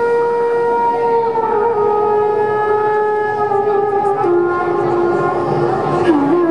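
Recorded music played for a dance routine: one long sustained, reedy note that steps down in pitch three or four times.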